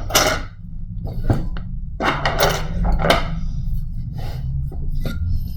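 A few short clatters and rustles of tools being handled at a repair bench, over a steady low hum.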